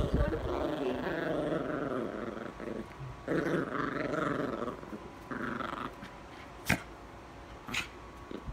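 Miniature pinscher growling during tug-of-war with a plush toy. The growls come in rough stretches, heaviest over the first few seconds, and there are two sharp clicks in the second half.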